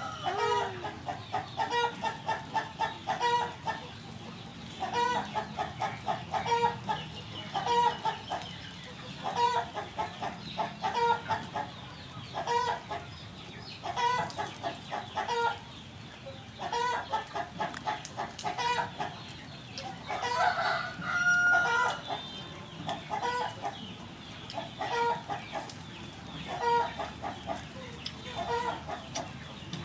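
Chickens clucking over and over in short bursts, with a rooster crowing right at the start and again about two-thirds of the way through.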